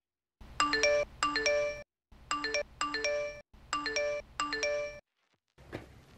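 Short intro jingle of quick, bright ringing notes, played three times with brief silent gaps between the phrases. Near the end there is a faint single tap.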